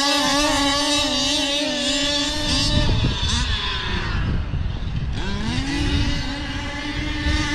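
OBR 34cc two-stroke gas engines of 1/5-scale Losi 4x4 RC trucks racing at high revs, a steady high-pitched buzz. About three seconds in the revs drop off, then climb back up about five seconds in and hold high again.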